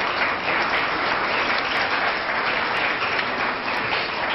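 Studio audience applauding, a dense steady patter of clapping that stops abruptly at the very end.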